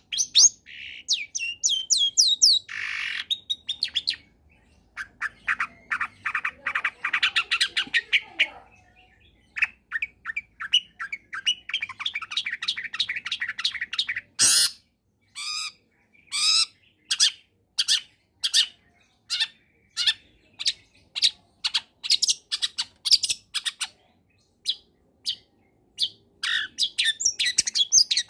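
Long-tailed shrike (cendet) singing a varied song of rapid trills and chattering notes. It gives one loud harsh call about halfway through, then a run of sharp single notes, and dense chatter again near the end.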